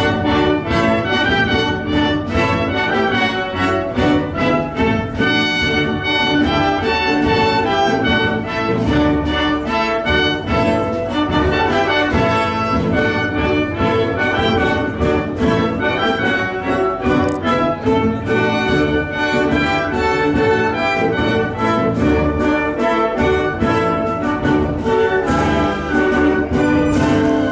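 Orchestral music with brass and bowed strings, playing steadily.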